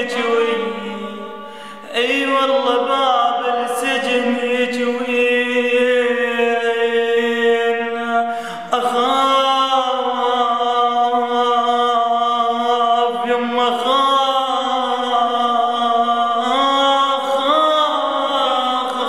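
A man singing an Arabic mawwal: long, drawn-out, ornamented notes, with new phrases beginning about two seconds in and again near the middle.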